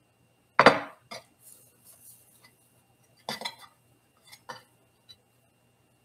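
A few scattered light knocks and clicks, the loudest about half a second in, as crescent roll dough is handled and laid out on a stoneware baking stone.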